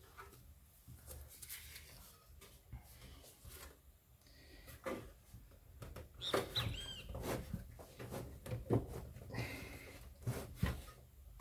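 Parts of a computer power supply being handled and fitted together by hand: irregular clicks, knocks and scrapes, busiest in the second half, with a few brief high squeaks around the middle.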